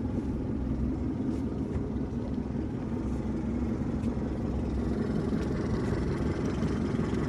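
Twin outboard motors on a boat's stern running at slow speed, a steady low rumble.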